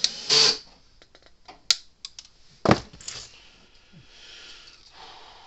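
Sharp clicks and light clatter of wire cutters snipping excess component leads off a freshly soldered circuit board, with a louder knock about two and a half seconds in as the tool is set down on the bench mat.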